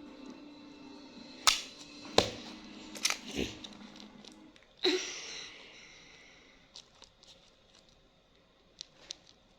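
Slime being stretched and squished by hand, with several sharp pops and snaps over the first five seconds, the loudest about five seconds in, then a few faint ticks.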